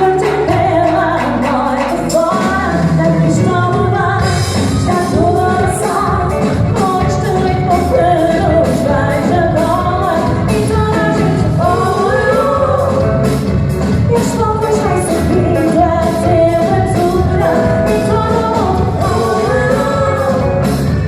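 Live band playing a pop song, a lead vocal singing over a steady drum beat.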